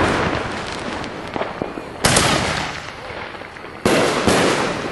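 Aerial fireworks bursting in the sky: a loud bang right at the start, another about two seconds in, and two more close together near the end, each fading away in a long echoing tail.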